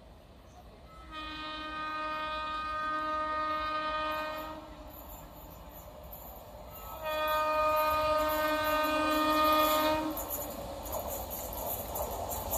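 Two long blasts of an Indian Railways WAP-7 electric locomotive's horn as it approaches an express through a station without stopping, the second blast louder. After the horn stops, the rumble of the approaching train rises.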